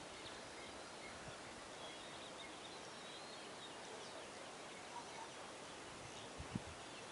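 Quiet outdoor ambience: a steady hiss of background noise with a few faint distant bird chirps, and a soft knock near the end.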